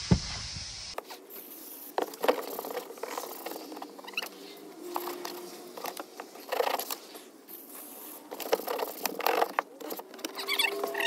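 A compressed-air hose blowing with a strong hiss that cuts off about a second in, followed by scattered clicks, scrapes and rattles of things being handled, with a few short squeaks.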